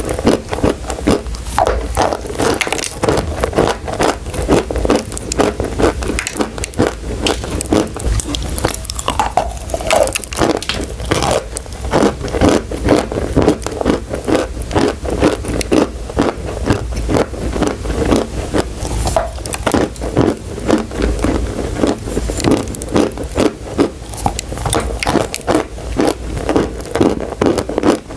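Close-miked crunching of chalk and clay: rapid, continuous dry crackling crunches, many each second, as the pieces are bitten and chewed.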